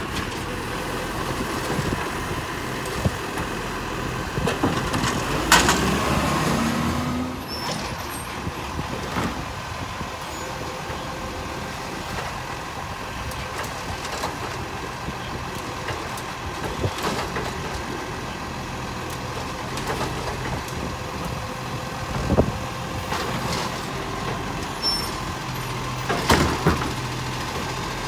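Iveco side-loader garbage truck running while its hydraulic arm lifts and empties wheelie bins. A handful of sharp knocks come as bins are shaken against the hopper, and the engine briefly rises in pitch about six seconds in.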